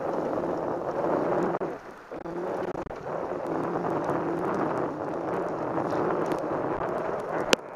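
Steady rushing noise of a bicycle riding through rain on a wet lane, with wind and rain buffeting the bike-mounted camera's microphone. It dips briefly about two seconds in, and there is a sharp click near the end.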